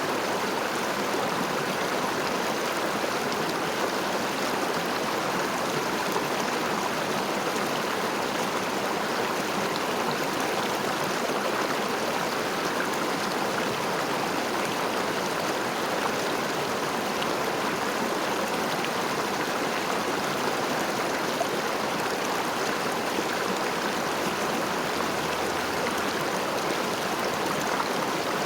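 A river flowing over stones, a steady rushing and babbling of water with no break or change.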